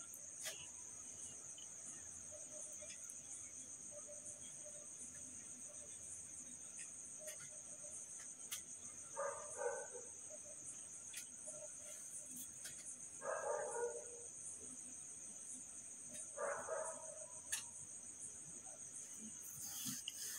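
A steady high-pitched chirring, as of insects, over quiet room sound, with a few soft clicks and rustles of hands handling silk fabric and several brief faint sounds.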